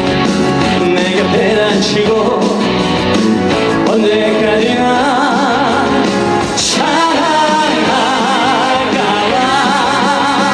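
Trot song performed live: a singer's voice with band accompaniment, holding long notes with vibrato in the second half.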